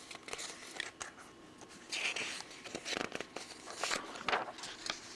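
Paper sheets rustling and crinkling as they are handled and turned, with a few small clicks.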